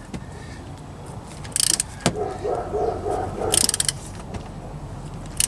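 Ratchet wrench clicking in three short bursts as wheel lug nuts are tightened, with one sharp single click about two seconds in.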